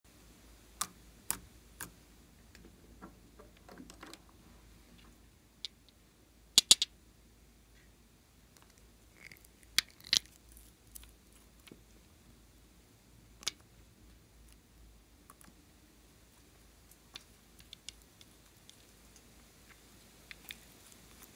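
Sharp clicks and taps from glass nail-polish bottles and their caps being handled and opened, scattered through a quiet background. The loudest is a quick double click about six and a half seconds in.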